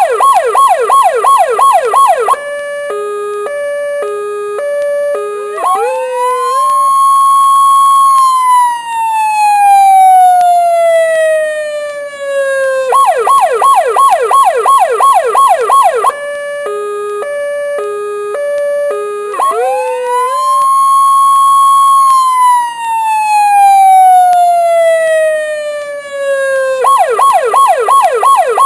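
Electronic police siren cycling through its modes: a fast yelp, then a two-tone hi-lo, then a long wail that climbs quickly and sinks slowly. The cycle starts again about every fourteen seconds.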